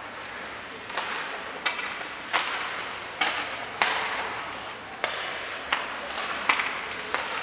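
Sharp clacks of hockey sticks striking pucks during a shooting warm-up, about nine at uneven intervals, each with a short echo in the ice rink.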